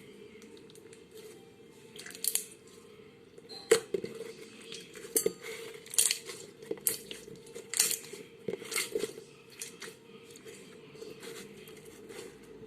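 Slime being squished and poked by hand, giving irregular sharp clicks and pops, the loudest about four seconds in.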